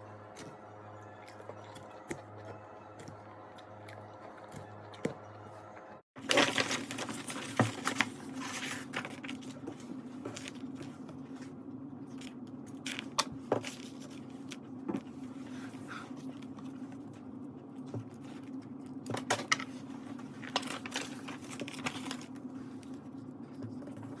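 Clinks, scrapes and clatter of household objects being handled and set down while tidying a room, over a steady low hum. The hum changes abruptly about six seconds in, and the clatter is busiest after that.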